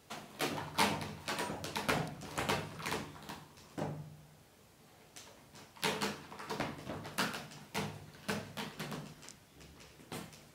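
Cat claws scratching the sisal mat of a wooden scratcher bed, in two bouts of quick strokes, the second starting about halfway through.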